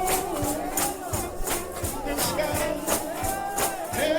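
Gospel shout band music: brass playing a sliding melody over a steady fast beat of tambourine and drums.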